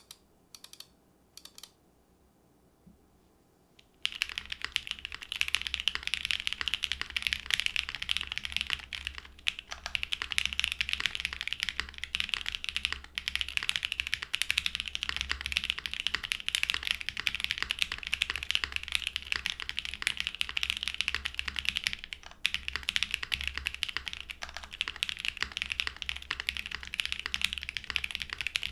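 Typing on an ai03 Vega mechanical keyboard: lubed Nolive linear long-pole switches on a full aluminum plate, with GMK Modern Dolch 2 keycaps and foam in the case and under the plate. A few single keystrokes, then fast continuous typing from about four seconds in.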